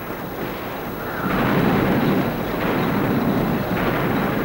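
Dense, continuous rumbling battle noise of tanks and shell bursts, getting louder about a second in.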